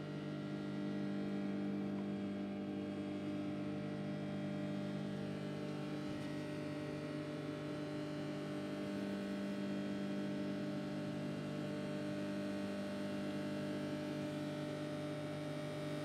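Sharp microwave oven running with a steady electrical hum, a bag of popcorn turning on the turntable before any kernels have begun to pop.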